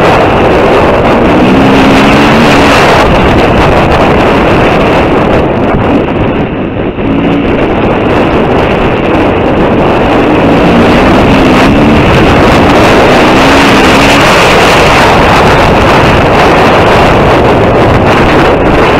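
KTM 350 EXC-F's single-cylinder four-stroke engine running under throttle on the move, heavily buffeted by wind on the microphone. The engine note climbs through the revs about two seconds in and again around ten to fourteen seconds, with a brief dip in level around seven seconds.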